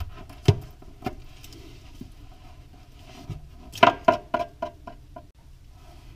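Knocks and taps of a white sheathed electrical cable being fed through a hole and flopping against the plywood bottom of a cabinet, with a quick run of knocks about four seconds in.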